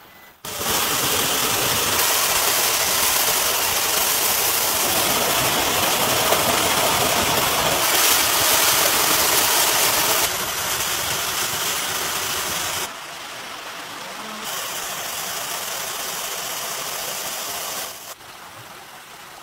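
Rushing, splashing water of a mountain stream, a loud steady rush that jumps abruptly in level several times and drops quieter near the end.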